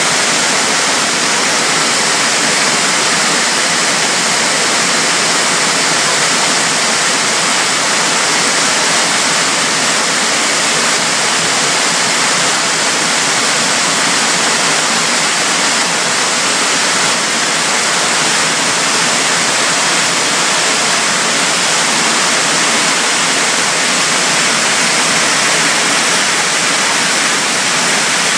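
Waterfall: a steady, loud rush of falling water, mostly hiss with little low rumble.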